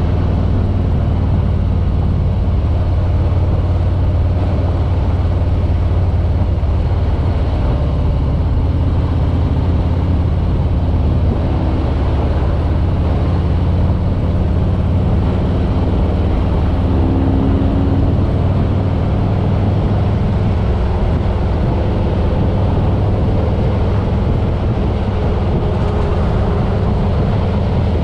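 Harley-Davidson Road King's V-twin engine running steadily at cruising speed, a low rumble mixed with wind and road noise.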